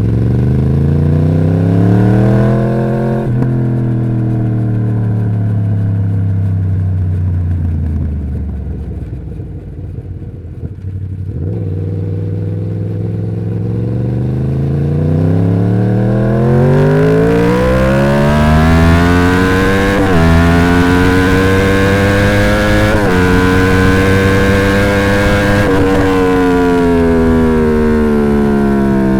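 2011 Yamaha YZF-R1's crossplane inline-four on its stock exhaust, pulling up in revs and then winding down slowly for several seconds. It climbs again through the gears with three quick gear changes, then eases off near the end.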